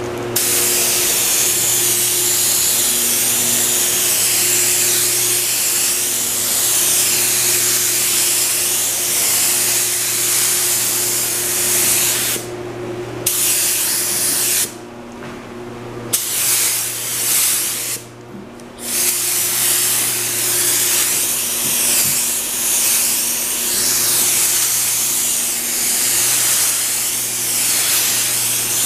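Gravity-feed compressed-air spray gun hissing steadily as it lays down a green base coat on a fibreglass race-car body, with the trigger let off briefly three times. A steady low hum runs underneath.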